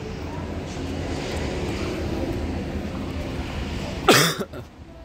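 Steady low background hum, then one short, loud cough about four seconds in.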